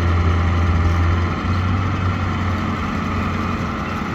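Diesel engine of a Hitachi EX100WD wheeled excavator running at a steady speed, with a low even hum.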